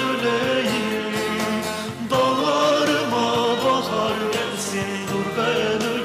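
Background music with singing: a wavering, held melody over instruments.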